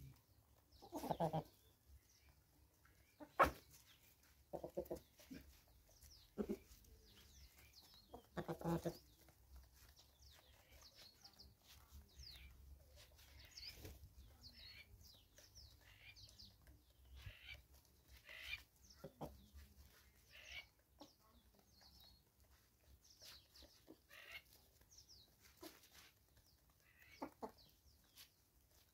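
Free-range chickens, hens and roosters, clucking now and then, with the louder clucks in the first nine seconds or so. A single sharp tap about three and a half seconds in is the loudest sound, and faint short high chirps come and go.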